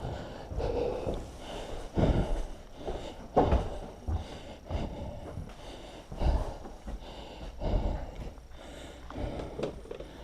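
A man breathing heavily and unevenly, loud breaths coming every second or two, mixed with a few dull knocks from handling things.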